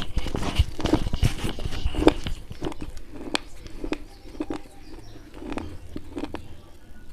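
Close-up crunching and chewing of slate pencils coated in white khadi paste. It is dense and crisp for the first two or three seconds, then slows to sparser, softer crunches.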